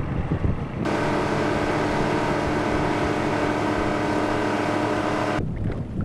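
Boat motor running at a steady speed, a steady pitched hum that starts abruptly about a second in and stops abruptly near the end. Wind buffets the microphone before and after it.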